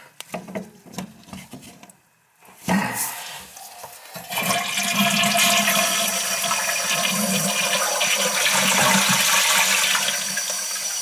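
A few small clicks of the toilet's angle-stop shutoff valve being handled, then from about four seconds in a toilet flushing and its tank refilling with a steady rush of water. Water keeps flowing with the shutoff turned, the sign that the valve will not close, possibly from a bad washer.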